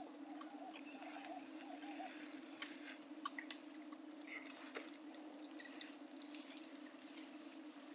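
African savanna elephants feeding: faint rustling and tearing of grass and vegetation with a few sharp snaps about three seconds in, over a steady low hum.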